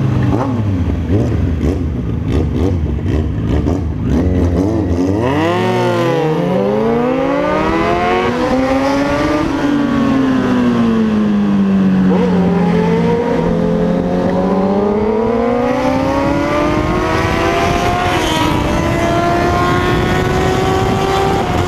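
Suzuki Bandit motorcycle's inline-four running through a straight-pipe exhaust with no muffler, loud throughout. The engine pitch drops, climbs sharply, falls again, then rises slowly and holds near the end.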